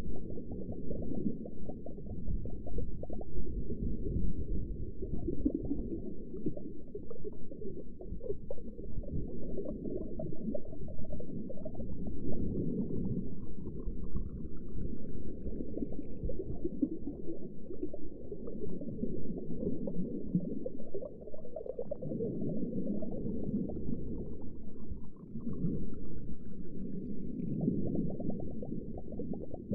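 Underwater ambience: a muffled, low churning rumble of moving water with gurgling, and twice a faint rising whistle-like sweep.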